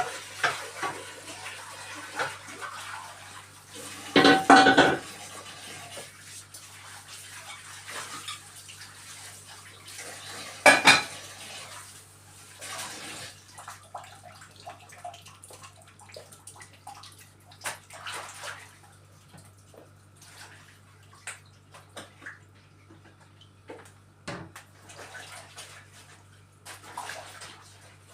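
Dishes, pots and cutlery clattering at a kitchen sink while the tap runs, with two loud clanks about four and eleven seconds in. The running water stops about halfway through, and lighter clinks go on after it.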